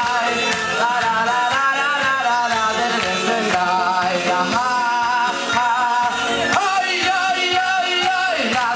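Hasidic wedding music for the mitzvah tanz: a singer's melody over a band with a steady beat.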